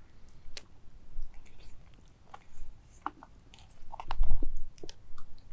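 Scattered small clicks and crunchy handling sounds close to the microphone, with a heavier low bump about four seconds in.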